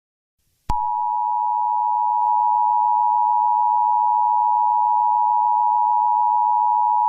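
Emergency alert attention signal: a steady two-note tone that switches on abruptly with a click less than a second in, over a faint hiss.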